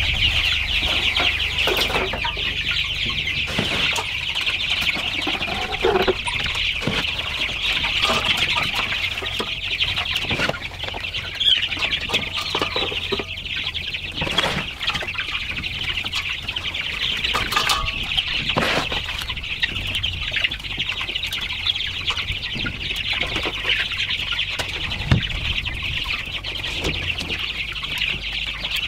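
A brooder full of Red Ranger broiler chicks peeping nonstop in a dense, high chorus. Scattered knocks and rustles come from feeders being handled on the shavings.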